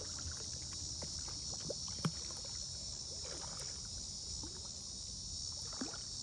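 Steady high-pitched insect chorus of crickets, with low water sloshing and a few faint short knocks, the clearest about two seconds in.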